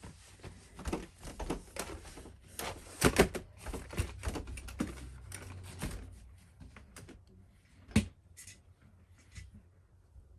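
Irregular knocks and clatter of bed-frame and drawer parts being handled, densest over the first few seconds with the loudest knocks about three seconds in, then a single sharp knock near eight seconds before it quietens.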